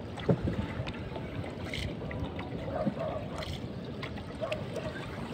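Water lapping and trickling against the hull of a small rowed boat, with scattered light clicks and knocks.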